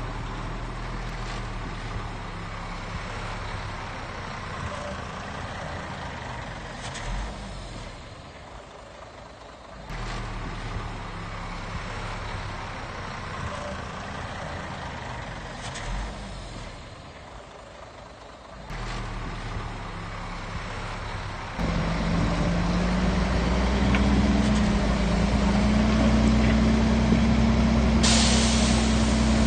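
Heavy diesel engines of a bulldozer and dump trucks running steadily, easing off twice. About two-thirds of the way through the engine grows louder and rises slightly in pitch under load. Near the end there is a sharp hiss of an air brake.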